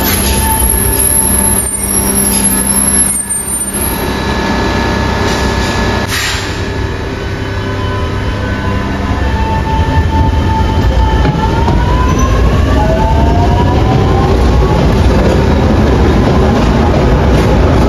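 MF88 Paris Métro train running, with a steady rumble and a motor whine; about eleven seconds in, the whine climbs in pitch as the train picks up speed.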